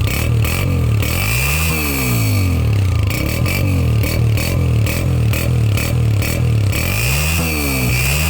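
Honda 125 motorcycle's single-cylinder four-stroke engine running through a freshly fitted Senkie exhaust silencer, idling and blipped up and back down twice, about a second and a half in and again near the end. It is a clean exhaust note without the rattle of loose baffles that the old local silencer had.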